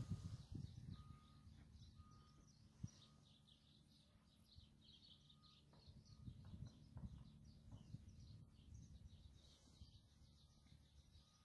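Faint small birds chirping, many quick high chirps repeating throughout, over a low faint rumble, with a soft knock at the very start and another about three seconds in.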